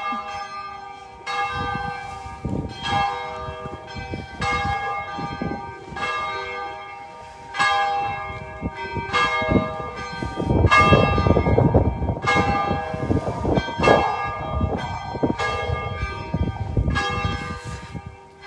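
Church bells ringing, struck about every second and a half, each strike ringing on into the next. A loud stretch of low rumbling noise runs under the bells in the middle.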